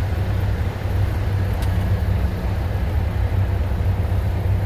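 Grain semi-truck's diesel engine running with a steady low drone.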